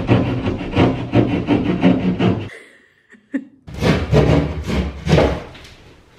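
A knife sawing through drywall in quick back-and-forth strokes, with a break of about a second midway before the strokes start again.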